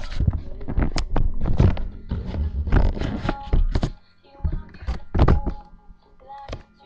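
A rapid run of loud thumps and knocks close to the microphone for about four seconds, then a few separate thuds near the end, over faint pop music.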